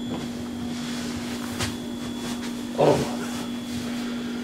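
Steady hiss of television static with a constant low hum underneath, and a single sharp click about a second and a half in.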